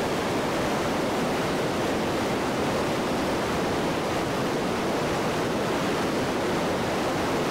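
Steady, even rush of the Iguazú Falls and the rapids below them.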